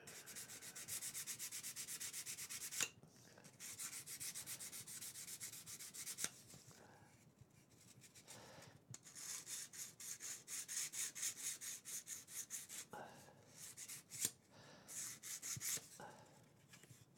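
Yellow sanding sponge rubbed in quick back-and-forth strokes over a small laser-cut wooden model wheelhouse, in several bursts with short pauses. A few sharp clicks fall between the bursts.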